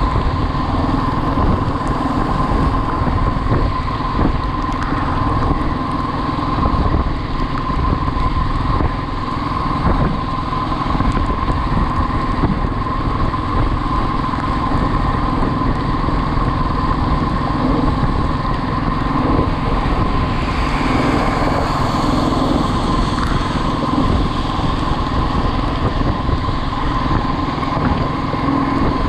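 Motorcycle engine running steadily while riding at speed, with heavy wind rush on the microphone and a steady whine throughout.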